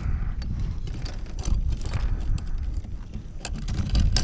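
Wind rumbling on the microphone, with irregular knocks and clicks of gear being handled on a plastic kayak.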